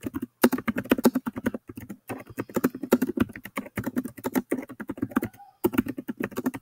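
Fast typing on a computer keyboard: a rapid run of key clicks, broken by a few short pauses.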